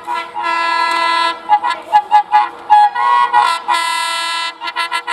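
WDM-3A diesel locomotive's horn sounded repeatedly as the train approaches: two long blasts of about a second each, with strings of short toots between and after them, quickening near the end.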